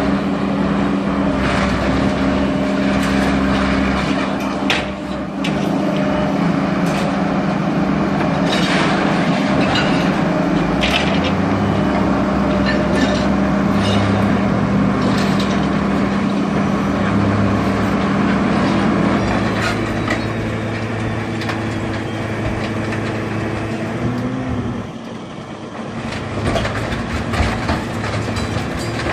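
Scrap metal shear baler working: the steady hum of its power unit, which shifts in pitch as the load changes, with scattered clanks and knocks of scrap metal being pressed.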